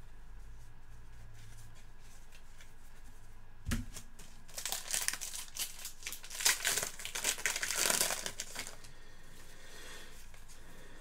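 Plastic trading card pack wrapper crinkling and rustling as it is handled, with a short knock just before it.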